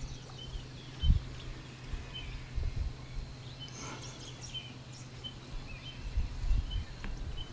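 Outdoor ambience: short, high chirps repeat about twice a second over a steady low hum and irregular low rumbles and thumps.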